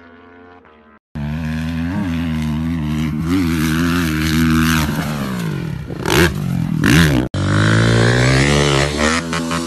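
Dirt bike engines revving, the pitch climbing and dropping as the throttle is worked. A quieter engine cuts off abruptly about a second in, and a louder dirt bike starts at once. A second abrupt switch to another revving dirt bike comes about seven seconds in.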